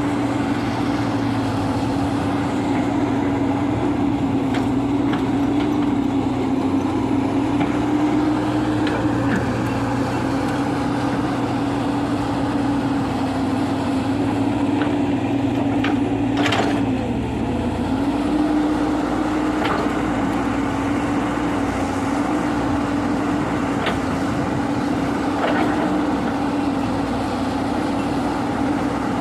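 Diesel engine of heavy earthmoving equipment (excavator or bulldozer) running steadily under work, with a few light clicks of the machinery. About halfway through, the engine note dips briefly, with one sharp clank at the same moment.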